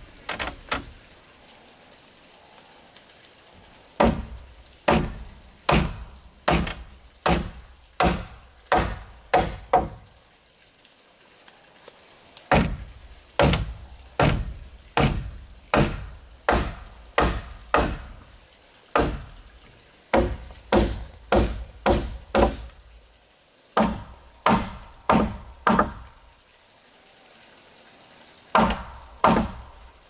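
Repeated blows of a hand tool on a timber beam, about one a second, in runs of several strikes with short pauses between.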